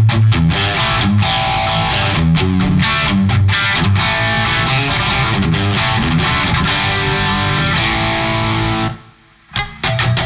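Electric guitar played through a KOR Oracle drive pedal set to its distortion range: saturated chords and riffs, with the playing stopping abruptly for a moment about nine seconds in before it resumes.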